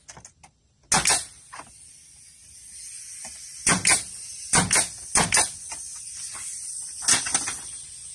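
Pneumatic nail gun firing nails into PVC brick moulding: five sharp shots, each a quick double crack. The first comes about a second in, then four more follow between roughly four and seven seconds in.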